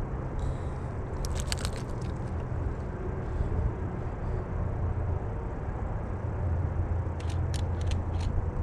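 Steady low outdoor rumble, with two short runs of crisp crackles or clicks, one about a second in and one near the end.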